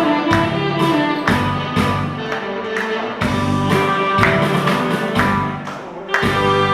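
Saxophone playing held melody notes over a backing track with a steady drum beat.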